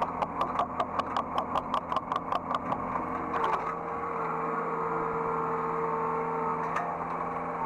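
Hydraulic excavator running, heard from the operator's cab. A regular ticking about five times a second stops about three and a half seconds in, a steady whine takes over, and the ticking comes back near the end.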